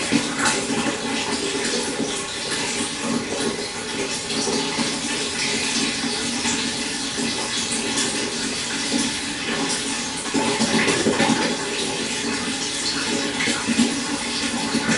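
Stream water flowing steadily, a constant rush with small bubbling splashes throughout.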